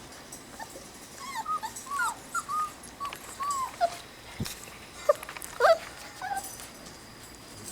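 Young Rottweiler puppies whimpering: a string of short, high squeaky whines that bend up and down in pitch, coming in two clusters, with a single soft knock in between.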